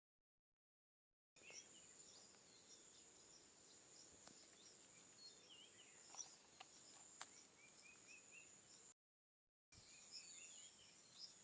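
Faint bird chirps over a steady high insect drone. The sound cuts in and out abruptly, with dead silence at the start and again about nine seconds in.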